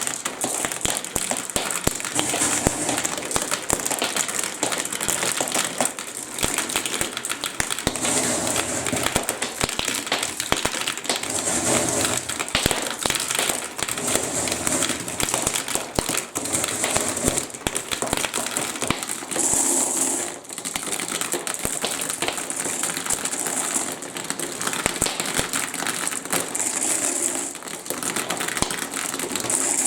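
Marbles rolling and clattering down a plastic block-and-magnet marble run with water running through the track: a steady rattle of many small clicks over a hiss of flowing water that swells every few seconds.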